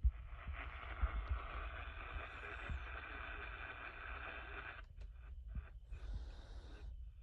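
Radio receiver static: a steady hiss with nothing above the upper midrange, which cuts off about five seconds in. Under it runs a low rumble, with a soft thump at the start and another about a second in.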